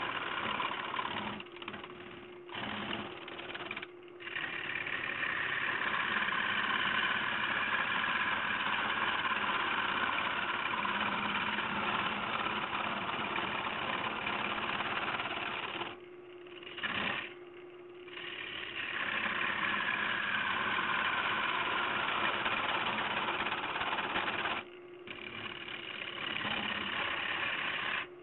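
A turning tool cutting into a spinning bowl blank of dead ash on a wood lathe, a steady cutting hiss over the lathe motor's hum. The cut breaks off briefly several times as the tool is lifted, for about two seconds past the middle and again near the end, leaving only the motor's hum.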